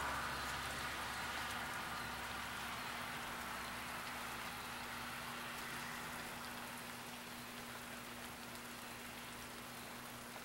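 Steady rain falling, an even hiss that slowly eases.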